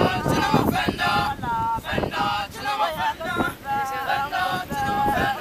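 A group of men singing together in held, sliding notes, with wind buffeting the microphone.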